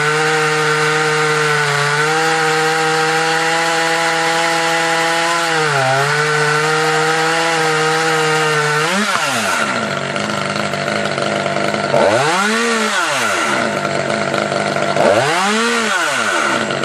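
Husqvarna T540 top-handle two-stroke chainsaw held at high revs for about nine seconds, with a brief dip near the six-second mark. It then drops back and is revved twice, the engine note rising and falling with each throttle blip.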